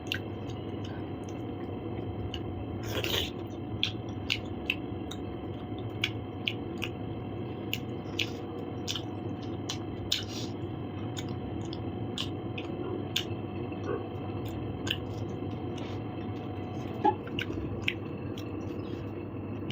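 Close-miked chewing and wet mouth sounds: many sharp smacks and clicks as food is eaten, over a steady background hum.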